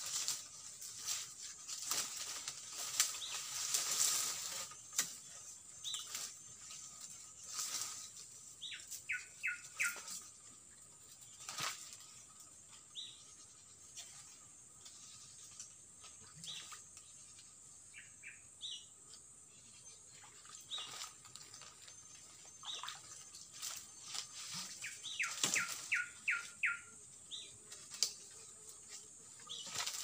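Small birds calling, with two quick runs of four or five short chirps, among scattered knocks and rustling as a long bird-net pole is handled in thick undergrowth. A steady high insect drone runs underneath.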